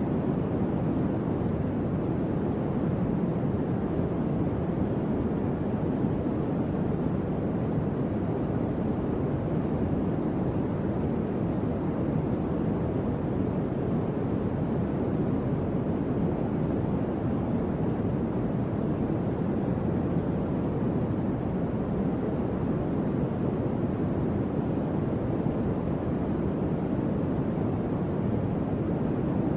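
Electric fan running steadily: an even, low whooshing noise of moving air with no changes.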